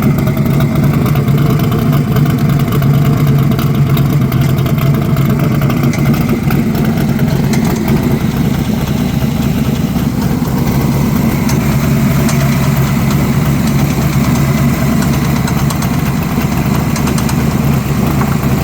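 Roadster's engine idling steadily with a fast ticking noise running along with it.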